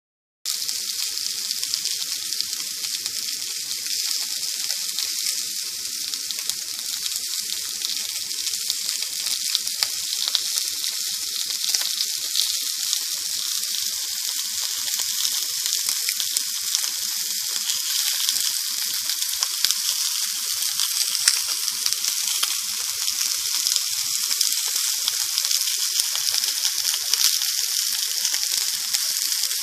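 Sausages frying in a pan: a steady sizzle with many small pops and crackles.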